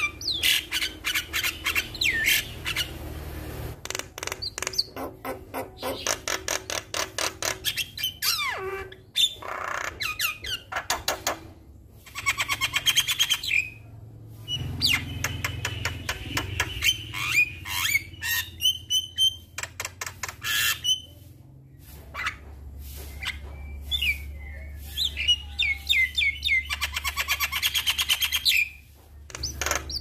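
Javan myna singing a long, varied song of harsh squawks, fast clicking rattles and short whistles, broken by a few short pauses.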